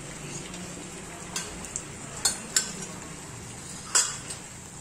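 Wooden spatula stirring thick egg-curry gravy in a metal kadhai, with several sharp knocks of the spatula against the pan, the loudest about four seconds in, over a steady hiss.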